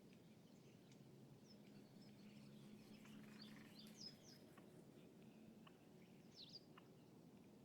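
Faint lakeside ambience: small birds chirping and twittering now and then, over a low steady hum.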